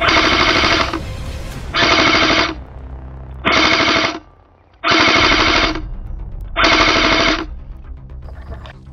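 Five short bursts of automatic gunfire, each lasting just under a second, with background music underneath.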